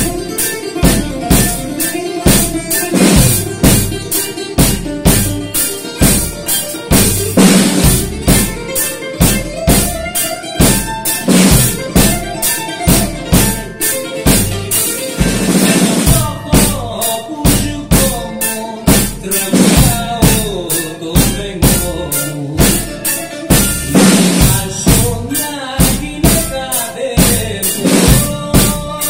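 Yamaha drum kit played to a steady beat, with bass drum, snare and cymbals, along with a recorded Greek laïko song carried by plucked strings.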